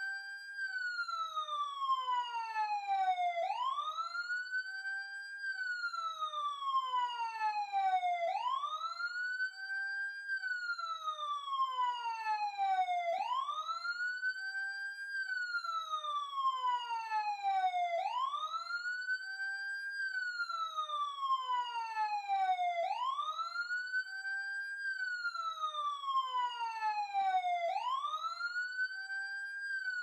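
Police patrol car siren wailing close up. Each cycle rises quickly in about a second, then slides slowly down over about four seconds, repeating roughly every five seconds.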